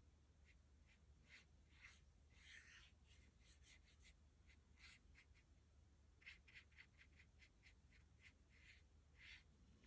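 Near silence, with faint, short scratchy strokes of a fine paintbrush drawing thin lines of watercolour paint on paper, a few a second and coming quicker about six seconds in.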